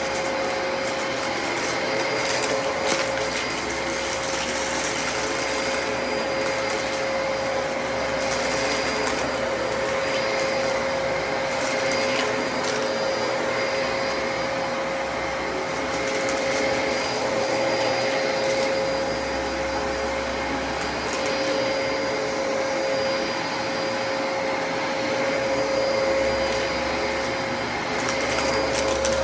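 Dyson DC33 upright vacuum cleaner running steadily, its motor holding one even whine over the rush of suction.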